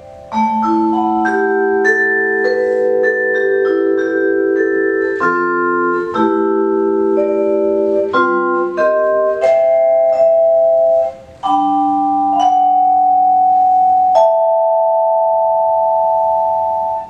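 Solo vibraphone played with mallets, chords struck with the notes ringing on and overlapping. Near the end a closing chord rings for about three seconds and is then damped off suddenly.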